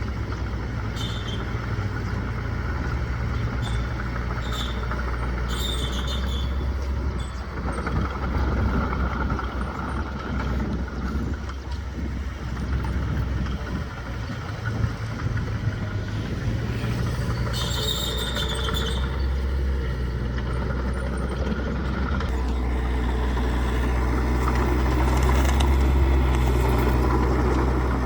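Bulldozer's diesel engine running steadily with a low hum, a little louder near the end, with brief high squeals now and then, the longest about 18 seconds in.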